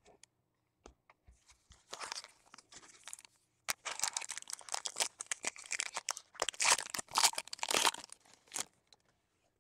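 Foil wrapper of a baseball card pack torn open and crinkled, with scattered clicks and rustling. The rustling comes in two stretches, a short one about two seconds in and a longer one from about four seconds in to near the end.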